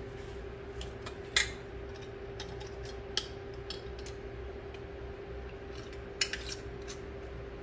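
Metal canning lids and screw bands clinking against glass mason jars as they are set on: a few sharp clicks, the loudest about a second and a half in, another near three seconds, and a short cluster just after six seconds.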